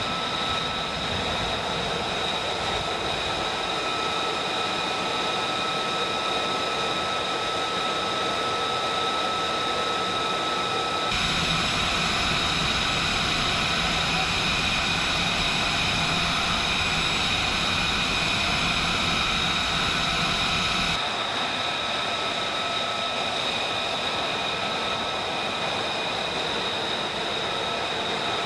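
F-35B's Pratt & Whitney F135 jet engine running on the ground, a steady high whine over a rushing roar. It turns louder and fuller for about ten seconds in the middle, then drops back.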